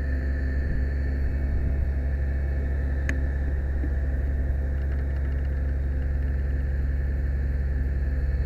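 Fire truck's aerial ladder apparatus running during an aerial check, a steady low mechanical hum with a faint high whine, and one short click about three seconds in.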